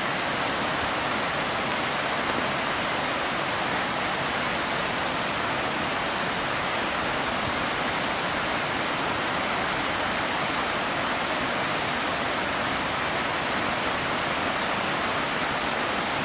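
Rocky mountain river rushing steadily, an even wash of water noise.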